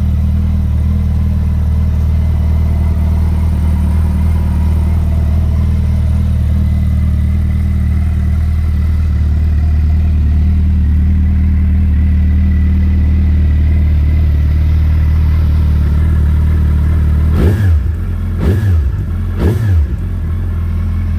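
Suzuki Hayabusa's inline-four engine idling steadily through a Yoshimura aftermarket exhaust. Near the end it is given three quick throttle blips about a second apart, each rising in pitch and dropping straight back to idle.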